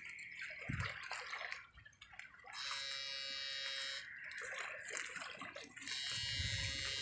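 High-pitched electric buzz from a battery-powered backpack electrofishing unit, coming on in bursts as current is sent into the water through its poles: once for about a second and a half midway, and again near the end.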